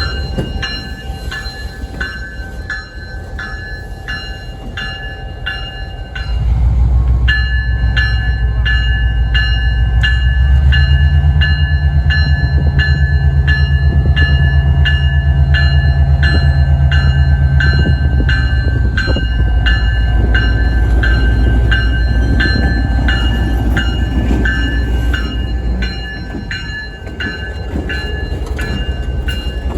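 A railroad crossing bell rings steadily with even, repeated strikes. About six seconds in, the deep rumble of a train's locomotive engine comes up loud as the train passes, then eases off near the end.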